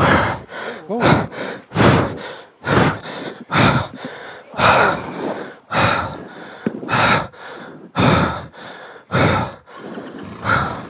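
A person breathing hard and fast, about one heavy breath a second, out of breath after physical exertion.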